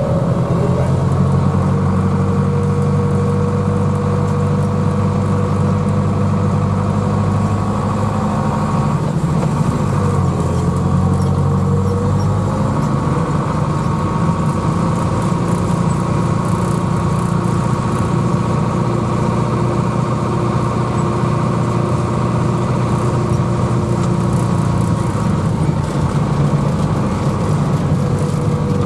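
International Harvester tractor's diesel engine running steadily under way, heard from inside the cab, with a steady whine over the engine note. The engine note dips briefly about ten seconds in, then picks up again.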